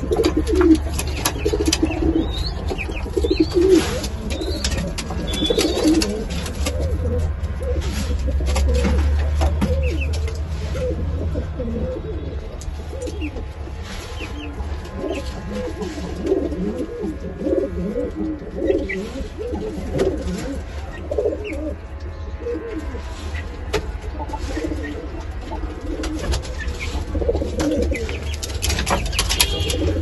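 Kanta fancy pigeons cooing over and over, the low coos coming in close runs, with occasional sharp clicks among them.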